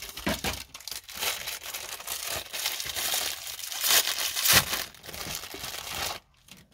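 Thin clear plastic packaging crinkling and tearing as it is handled and pulled open to free a roll of double-sided adhesive tape. The crackling goes on continuously and stops shortly before the end.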